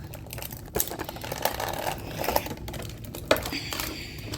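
Plastic and cardboard toy packaging being handled and pried at as a small action figure is worked out of its box: scattered clicks and taps with some crinkling.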